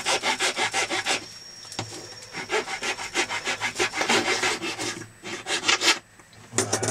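Flat hand file rasping across hardened epoxy on a plastic camera mount in quick back-and-forth strokes, about five a second, with a pause after about a second and a short break near the end. The file is levelling the cured epoxy filler flat.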